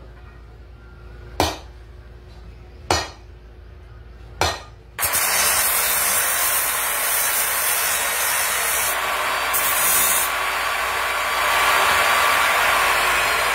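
A hammer strikes a torch-heated steel round bar on a steel plate three times, about one and a half seconds apart, each blow a short ringing clang. About five seconds in, an abrasive cut-off saw gives a loud, steady grinding noise as the bar's end is held to its wheel.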